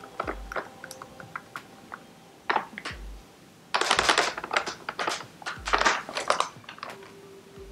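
Plastic pouch of flour crinkling and rustling as it is tipped and poured into a measuring cup, in several rustles with the loudest a few seconds in.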